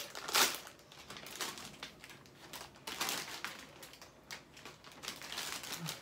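Crinkling of a Lay's potato chip bag as it is opened and handled, in uneven bursts, the loudest just under half a second in and another about three seconds in.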